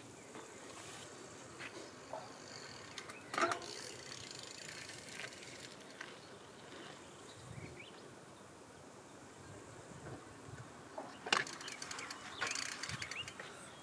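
Faint outdoor background with insect-like chirring and a steady hiss, broken by scattered clicks and knocks. The loudest knocks come about three seconds in and again near the end.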